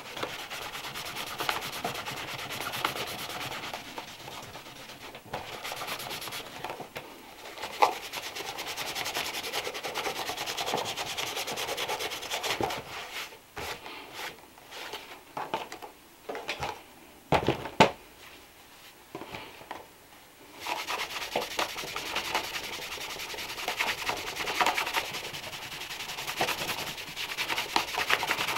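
Rubbing strokes over a leather shoe during polishing. There is a quieter stretch around the middle, broken by a few sharp knocks.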